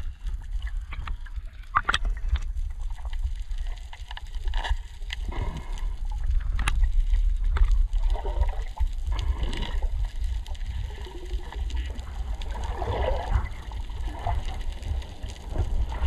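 Water sloshing and gurgling close to the microphone over a steady low rumble, with scattered clicks and knocks.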